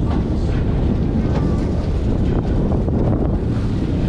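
Wind buffeting the microphone, steady and loud, over sea water splashing along a boat's hull.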